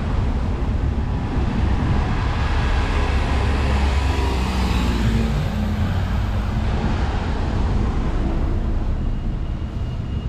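Street traffic: a motor vehicle passing close, its engine and tyre noise swelling to a peak about halfway through and then fading, over a steady low rumble.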